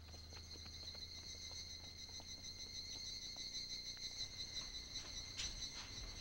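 A steady, high-pitched chorus of chirring insects, with a few faint clicks.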